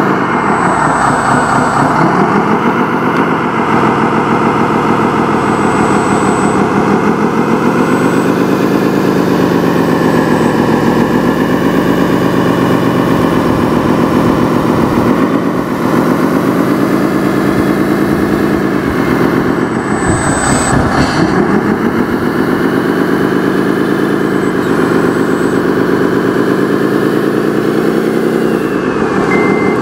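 RC Caterpillar bulldozer running as it drives and pushes dirt, its engine note rising and falling in pitch again and again with the throttle. Near the very end a reversing beeper starts.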